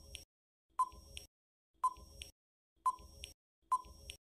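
Countdown-timer sound effect: short beeps, about one a second, each a brief mid-pitched tone with a click.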